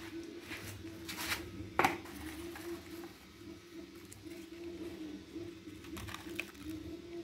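Homemade revolver-cylinder automatic cigarette-making machine running while it makes filter cigarettes: a steady motor hum with a slight waver, with scattered clicks. A single sharp knock comes just under two seconds in.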